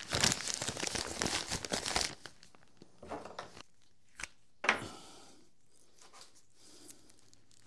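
Plastic bag crinkling and tearing as a coil of yellow 12-3 Romex cable is pulled out of it, dense for about the first two seconds, then a few lighter rustles and clicks as the cable is handled.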